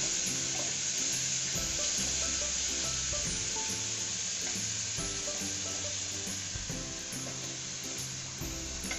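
Chopped onions sizzling steadily in hot oil in a pressure cooker, stirred with a wooden spatula. Soft background music with held notes plays underneath.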